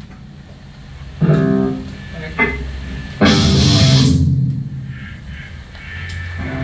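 Metal band playing an opening: electric guitar and bass chords struck and left to ring over a low held note. There are three hits, the last and loudest about three seconds in with a cymbal crash, then the sound dies away.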